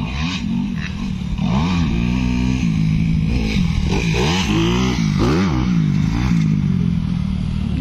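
Motocross dirt bike engine revving up and down, its pitch rising and falling several times as the rider works the throttle over the track.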